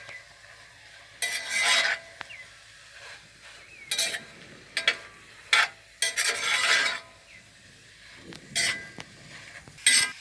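A utensil stirring and scraping in a wok, tossing beef strips through stir-fry vegetables, in about seven irregular strokes of scraping and clatter.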